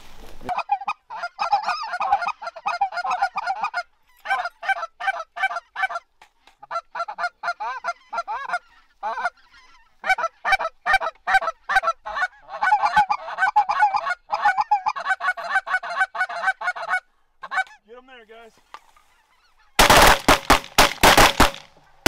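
A flock of geese honking and calling as it comes in, a dense run of calls that breaks off now and then. Near the end comes a rapid volley of about ten shotgun blasts from several guns, the loudest sound.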